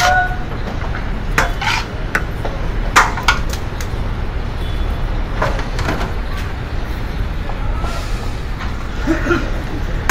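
A steel plate scraping and clinking against a large aluminium biryani pot and a steel serving tray as rice is scooped and spread out, with a handful of sharp clinks spread through, over a steady low background rumble.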